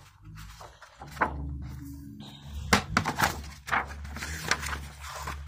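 Hardcover yearbook being handled and its pages flipped: paper rustling with a few irregular soft thunks.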